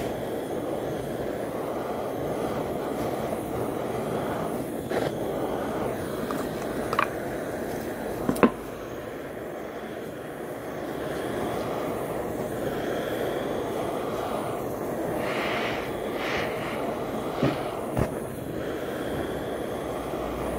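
Handheld gas torch burning with a steady rushing roar as its flame scorches the face of pine log slices, bringing out the grain. A few sharp clicks cut through it, the loudest about eight seconds in.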